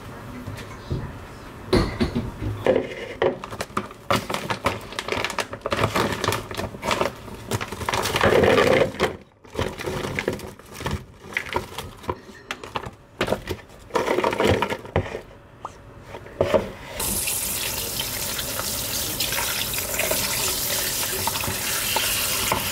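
Irregular knocks and clatter of kitchen handling, then a tap running steadily into a sink from about two-thirds of the way through.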